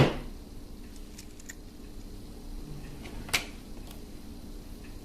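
Handling clicks from working a small plastic automotive wiring connector and its terminal pins with a tiny screwdriver: one loud click at the start, a second sharp click about three seconds in, and a few faint ticks, over a faint steady hum.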